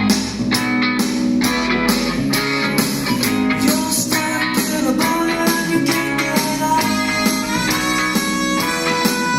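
Guitar-led music with a steady beat, about two beats a second, played loudly through a loudspeaker.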